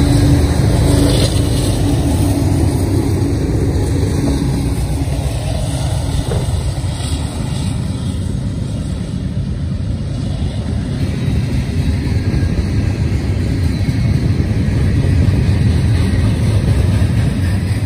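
Union Pacific manifest freight train passing close by: the diesel locomotives' engines running with a steady tone that fades out about five seconds in, then the steady low rumble of freight cars rolling over the rails.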